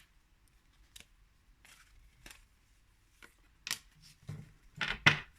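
Oracle cards being drawn from a deck and laid down: a scattering of short card snaps and slides, several a second apart, louder toward the end.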